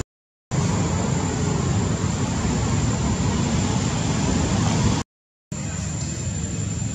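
Steady low rumbling background noise with a hiss over it and a faint steady high tone, with no animal calls standing out. The sound cuts to dead silence twice for about half a second, at the very start and about five seconds in.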